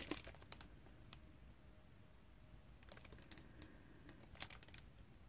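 Faint, scattered small clicks and taps of fingers handling and uncapping a small scent sample vial, with near silence between them.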